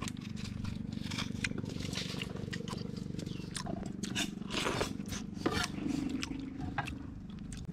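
Metal spoon scraping soft flesh from a split young coconut: a run of short, irregular scrapes and clicks over a steady low background hum.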